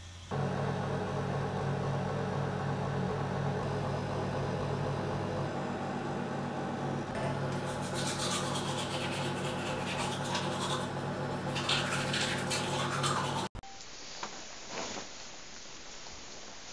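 A steady low mechanical hum made of several fixed tones, with rustling and scraping over it from about halfway through. The sound cuts off abruptly near the end, leaving quieter room sound.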